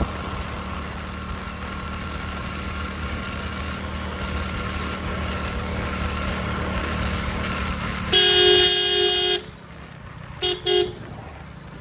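Motorcycle running steadily along the road. About eight seconds in, a vehicle horn sounds loudly for just over a second, then gives two short toots.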